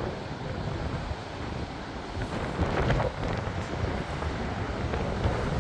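Steady rush of the Gullfoss waterfall, with gusting wind buffeting the microphone.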